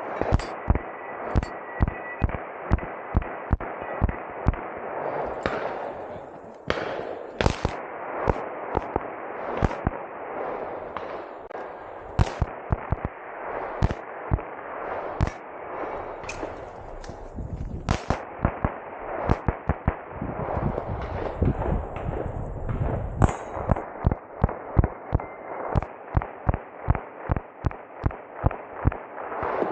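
Rapid gunfire from a pistol and a rifle on a practical shooting stage: dozens of sharp shots in quick strings, with brief pauses near the quarter and halfway points.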